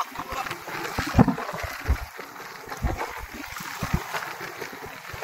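Wind buffeting the microphone and small waves lapping against the hull of an inflatable boat, with irregular low thumps.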